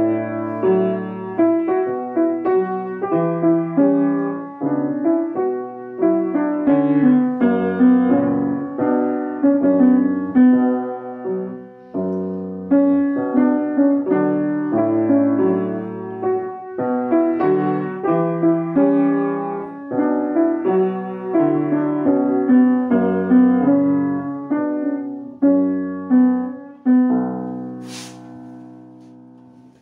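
Solo piano music, ending on a held chord that fades away near the end.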